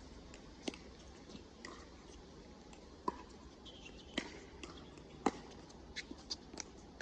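Pickleball rally: paddles hitting the plastic ball, with the ball bouncing, as a series of sharp pops about a second apart, six or so in all.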